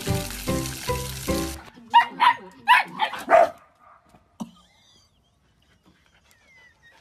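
Background music with a steady beat stops, then a dog barks four times in quick succession, followed by a single knock.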